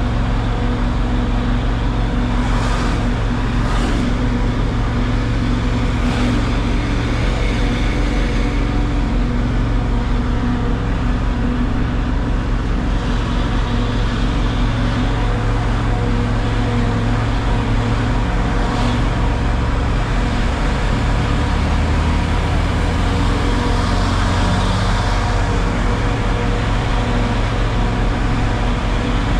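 Steady engine drone and road noise of a La Paz micro, a small public bus, running along, with a few brief knocks or rattles.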